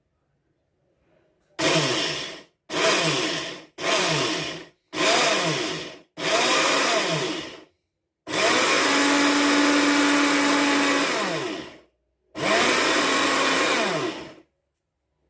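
Electric grinder grinding toasted sesame seeds in seven short pulses, the motor spinning up and winding down each time, with the later pulses held longer. The seeds are being ground to a powder without being run long enough to release their oil.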